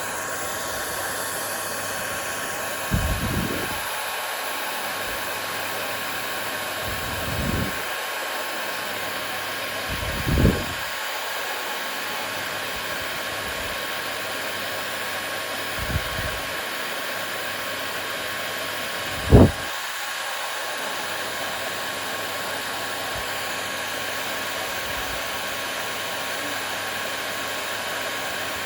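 Hair dryer running steadily: an even airy noise with a faint fixed whine. Five soft low thumps come through, the strongest about two-thirds of the way in.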